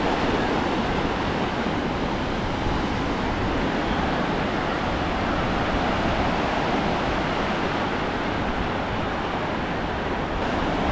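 Sea surf washing onto the beach as a steady rushing, with wind buffeting the microphone.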